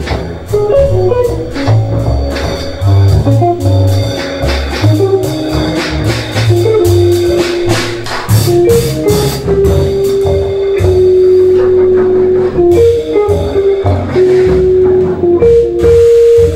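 Small jazz combo playing: a saxophone carries the melody in long held notes over an upright bass line, drum kit with cymbal strokes, and archtop guitar.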